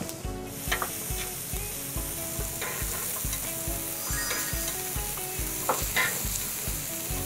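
Slices of frozen pork belly sizzling as they fry, a steady hiss that starts about half a second in.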